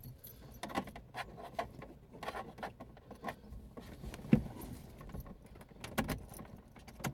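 Keys jangling with scattered light clicks and knocks, and a louder knock about four seconds in: keys and fittings being handled in a car while the radio is readied to test a newly fitted speaker.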